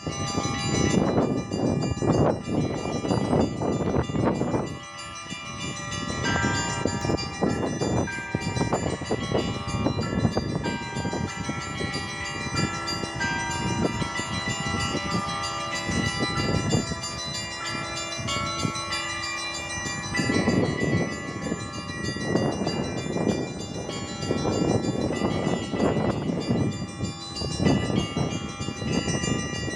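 Russian church bells ringing a peal (kolokolny zvon): bells of several pitches struck over and over in a busy, continuous pattern, their tones lingering and overlapping. The peal eases briefly about five seconds in, then picks up again.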